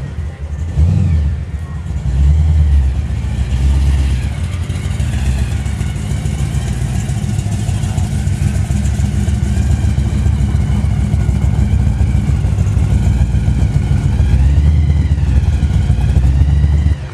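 1958 DeSoto Fireflite's V8 engine running, heard from behind at the exhaust: blipped a few times in the first few seconds, then running steadily.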